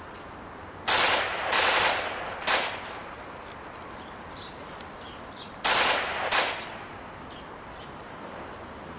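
Bursts of automatic gunfire: three short bursts about a second in, then two more a few seconds later, over a steady background hiss.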